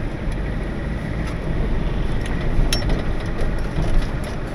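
4x4 wrecker's engine running, heard from inside the cab as a steady low rumble, with one sharp click a little past halfway through.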